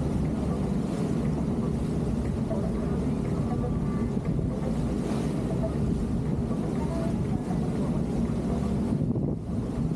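Motor yacht's engines running steadily under way, a low even rumble with wind and water rushing past the hull.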